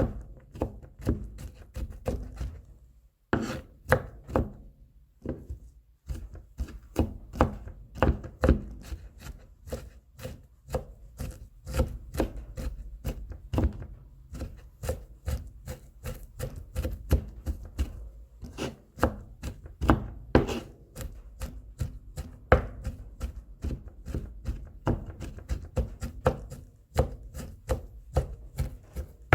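Kitchen knife mincing garlic cloves on a cutting board: a run of quick, uneven chops, about three to four a second, with a brief pause about three seconds in.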